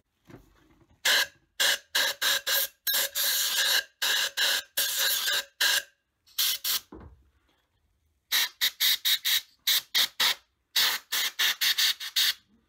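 Compressed air hissing from a nozzle in many short blasts, with a whistling tone, blowing debris out of an empty spark plug well. The blasts come in quick groups: a long run, then a pair, then two more quick runs.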